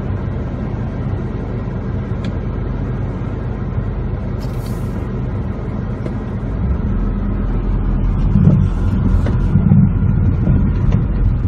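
Car driving slowly over a rough, potholed dirt road, heard from inside the cabin: a steady low rumble of engine and tyres that grows louder about two-thirds of the way in, with heavier jolts near the end.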